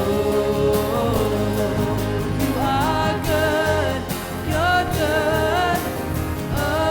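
Contemporary Christian worship song performed live by a band with singers: long held, sliding vocal lines over bass and drums.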